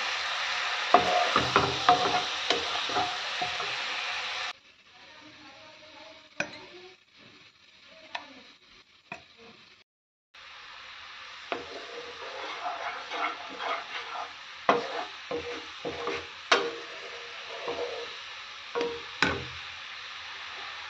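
Turmeric and dried red chillies sizzling in hot oil in a nonstick pan, with a spatula scraping and stirring through it. After a cut, the liquid bubbles more quietly while the spatula taps and scrapes against the pan, mashing boiled chana dal.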